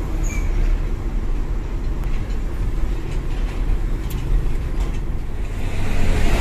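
Mitsubishi Fuso Fighter dump truck's diesel engine running, heard from inside the cab as a steady low rumble that grows louder near the end.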